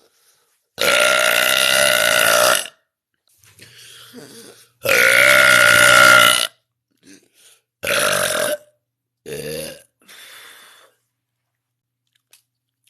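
A person burping loudly and repeatedly: two long drawn-out burps of about two seconds each, then a shorter one and a brief one, with fainter sounds between them.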